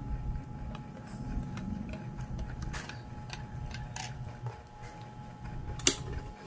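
Metal knife and fork clicking against a plate a few times, the sharpest click near the end, over a steady low hum.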